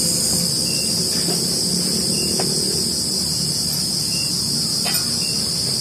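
Chorus of insects, crickets or cicadas, keeping up a steady, unbroken high-pitched drone, over a low steady rumble.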